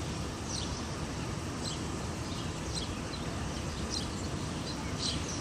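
A bird chirping short, high calls about once a second, over a steady low rumble of city traffic.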